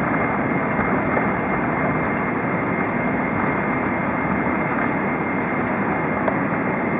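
Steady jet engine and rushing airflow noise heard inside the cabin of a Boeing 777-300 rolling along the runway on landing, with a thin high whine running through it.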